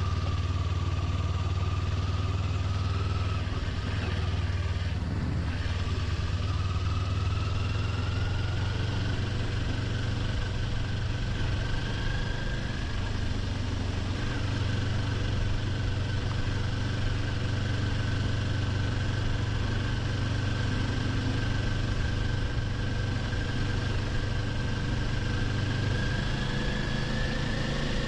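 Kawasaki Ninja 400's parallel-twin engine running steadily under way, with a rush of wind and road noise. Its whine creeps slowly up in pitch, rising a little more near the end.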